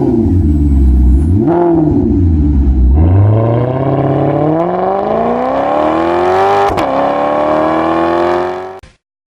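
McLaren MP4-12C's 3.8-litre twin-turbocharged V8 running low, with one quick blip of the throttle, then accelerating hard with a long rising pitch. It drops once for an upshift and climbs again before cutting off suddenly near the end.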